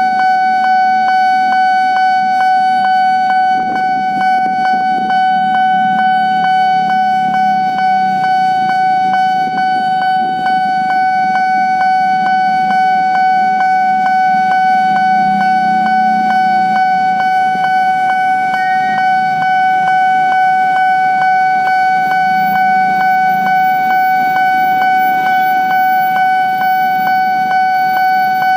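Railway level-crossing warning alarm sounding: a steady high electronic tone, pulsing in a fast even rhythm, with a low varying rumble beneath.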